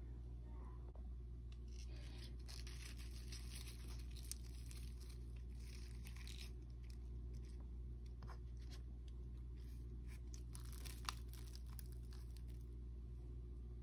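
Faint crinkling and rustling as lettuce, a tomato slice and a soft bun are handled and pressed together by hand, over a steady low hum.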